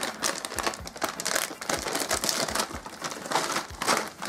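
Foil snack bag of Chicharron ni Mang Juan crinkling and crackling as it is handled and opened.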